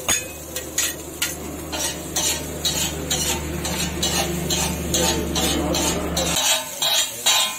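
Steel spatulas scraping and clanking on a large flat metal griddle as chowmein noodles are stir-fried, about two strokes a second, with a light sizzle. A low steady hum underneath cuts off suddenly about six seconds in.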